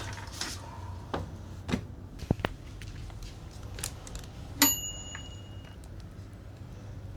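A few light clicks and taps of small hard objects being handled, then a single sharp metallic ding about halfway through that rings brightly for about a second.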